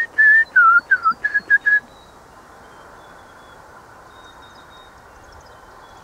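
A man whistling an imitation of a small bird's song: a quick run of clear notes, some swooping down and back up, ending in three short level ones and stopping about two seconds in.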